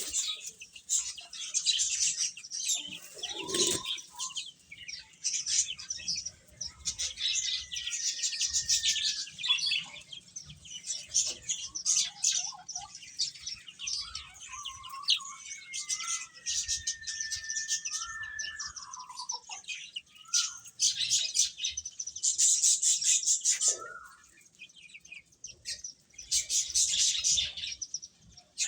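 A group of chicks peeping continuously, a dense run of short high chirps with a few longer falling peeps standing out. The chirping briefly thins out twice in the second half.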